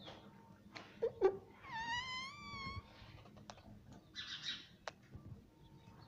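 Indian ringneck parakeet giving one drawn-out, whistle-like call about two seconds in, lasting a little over a second, after a short low squawk. A few sharp clicks and a brief hiss follow.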